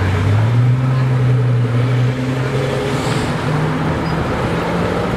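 Pagani Huayra Roadster's twin-turbo V12 pulling away at low revs in traffic. The engine note rises just after the start, holds steady, then climbs again a little past halfway.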